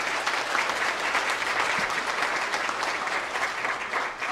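A roomful of people applauding, a steady round of clapping that eases off near the end.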